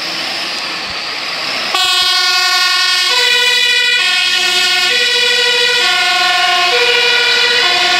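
A fire engine's engine running as it pulls out, then about two seconds in its two-tone siren starts, switching between a high and a low note a little under once a second.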